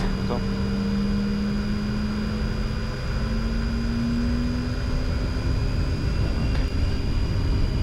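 Cockpit of a Bombardier Challenger 604 as its GE CF34-3B turbofans spool up for takeoff. A low hum rises slowly in pitch over a steady high whine, and a low rumble builds near the end as the jet starts its takeoff roll.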